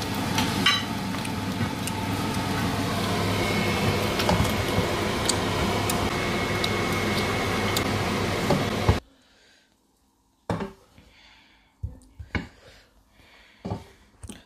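Spatula scraping and clinking against a pot and a glass plate as a dry meat fry is served, over a steady whooshing hum. The hum cuts off abruptly about nine seconds in, leaving scattered separate clicks and scrapes.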